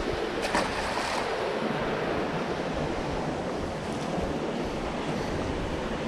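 Steady rushing of a creek running high and fast at flood stage, with a couple of light clicks in the first second.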